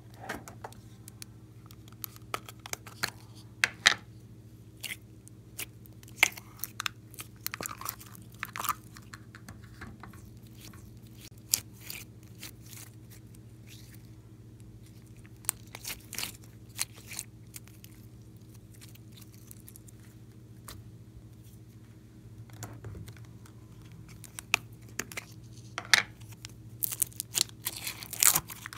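Glossy slime mixed with clay being squeezed, stretched and folded by hand, making irregular sticky clicks and small pops. There is a quieter stretch midway and the clicks come thicker near the end, over a faint steady low hum.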